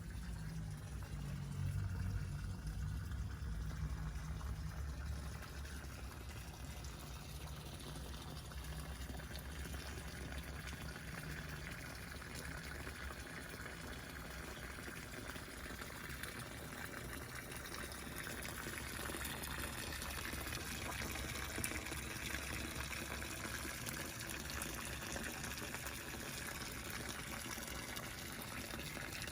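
Water running and pouring steadily.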